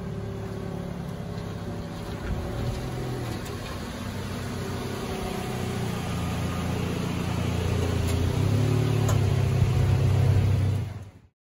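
Toyota Yaris hatchback's engine running at low speed as the car rolls in and parks, with tyre noise on the pavement. It grows louder as the car comes close, then cuts off suddenly near the end.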